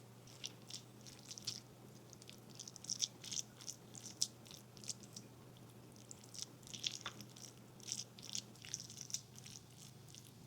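Faint, irregular crinkling and light ticking from food being handled during kitchen preparation, over a low steady hum.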